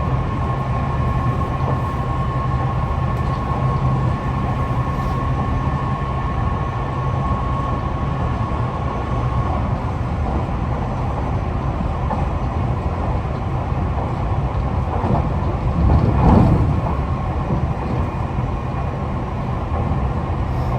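Running sound inside a Tobu 50090 series electric commuter car: steady wheel-and-rail rumble under a constant motor whine that stops about halfway through, with a brief louder surge near the end. The motor sound of this car is one the uploader finds unusual, perhaps a different motor type from the rest of the fleet.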